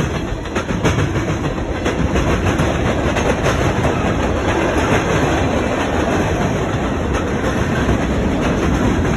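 Norfolk Southern manifest freight train's tank cars and covered hoppers rolling past: a steady rumble of steel wheels on rail, with scattered wheel clicks over the rail joints.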